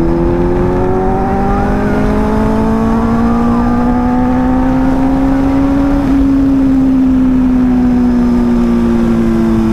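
Benelli 600i inline-four motorcycle engine accelerating hard, its note climbing steadily for about six seconds and then easing down slightly near the end, with wind rushing past at speed.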